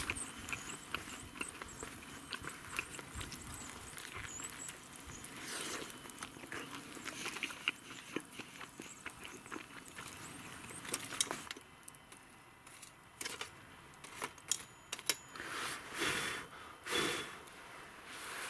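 Wooden spoon scraping and knocking in a wooden kuksa cup while food is scooped out, in irregular small clicks and knocks. A sharper knock comes about halfway through, and there are a few louder rustling knocks near the end.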